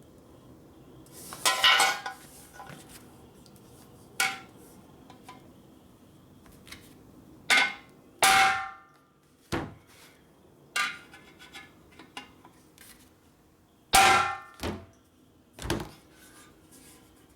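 Hammer blows on a sheet-metal motorcycle gas tank, dimpling its underside to make clearance for the mounting bolts. About nine irregularly spaced metallic strikes, several with a short ringing tail.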